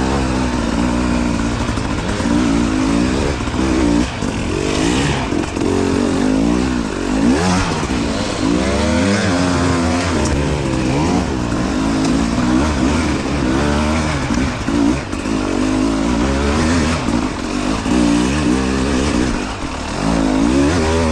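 Two-stroke enduro motorcycle engine revving up and down continually as the throttle is worked on and off while riding.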